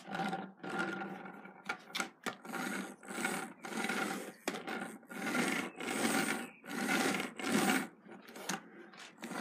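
Plastic toy tractor and hitched trailer pushed back and forth on a tabletop, their plastic wheels rolling with a rough rasping rumble. The rumble comes in repeated strokes, roughly one a second.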